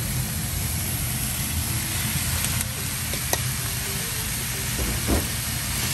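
Vegetables stir-frying in a hot nonstick frying pan, with noodles added partway through: a steady sizzle over a low steady hum, with a few sharp clicks.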